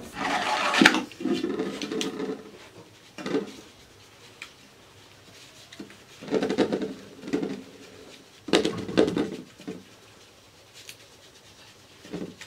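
Flour being sifted through a round wood-rimmed drum sieve shaken over a metal basin: a shushing rattle in several separate bursts, with a few sharp knocks.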